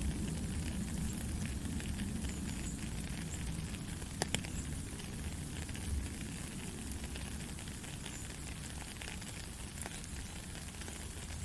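Heavy rain falling steadily, a dense crackle of drops over a low rumble, with one sharp drop hitting close about four seconds in.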